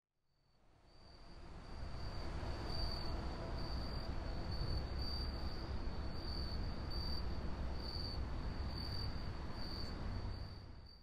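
Insects chirring in a high, pulsing trill over a low, steady rumble; it fades in over the first two seconds and drops away at the very end.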